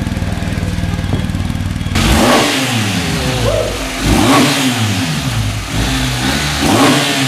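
BMW R 1250 GS boxer-twin engine idling steadily, then, about two seconds in, revved three times in short throttle blips, each rising quickly and falling back to idle.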